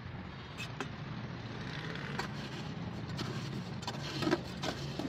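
Hands scooping and scraping wet concrete mix, with scattered short gritty clicks that come thicker in the second half. Under them runs a steady low machine hum.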